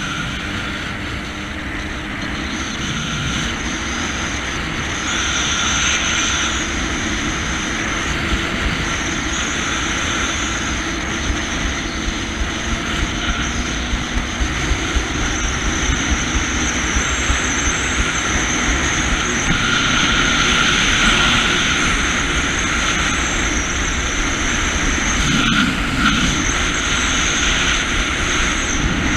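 Jet ski engine running steadily under way, a continuous drone with rushing noise over it. A few light taps come in the middle.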